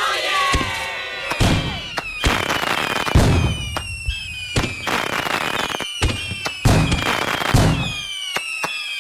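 Firecracker and fireworks sound effect: a dozen or so sharp, irregular bangs, with whistling tones between them that slowly fall in pitch.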